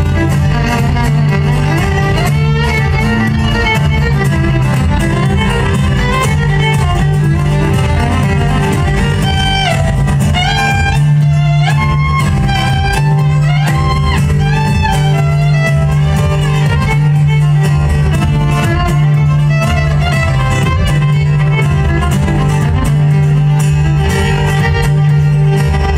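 Acoustic string band playing an instrumental live, with the fiddle carrying the melody over strummed mandolin-family and acoustic guitar accompaniment. The fiddle line slides between notes around the middle.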